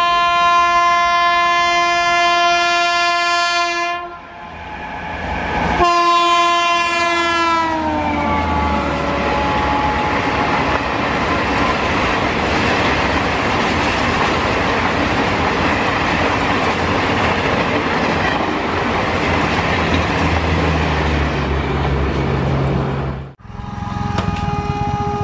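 WAP-7 electric locomotive's horn sounding a long blast, stopping briefly, then sounding again and dropping in pitch as the locomotive passes at speed. Then the steady rush and rail clatter of ICF coaches going by at about 130 km/h. Near the end the sound cuts to another electric locomotive's horn as it approaches.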